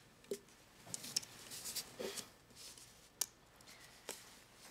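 Faint sipping from a paper takeaway coffee cup, with soft rustles and a few light clicks as the cup is handled and lowered.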